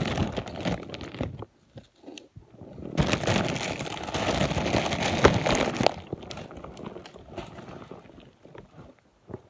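Crinkling of a party-size Hot Cheetos Puffs chip bag being handled. It comes in two spells: for about the first second and a half, then again from about three to six seconds in, with fainter rustling after.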